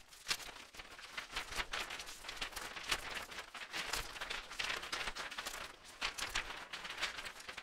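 Irregular rustling and clicking handling noise, a busy run of small crackles and taps with a few sharper clicks throughout.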